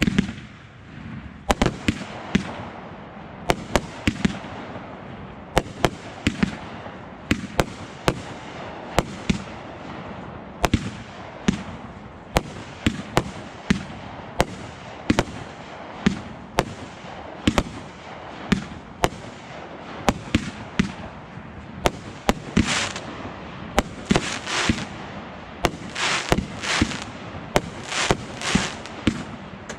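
Aerial fireworks display: a rapid series of sharp bangs from shells bursting, about one or two a second, with a denser crackling hiss in the last third.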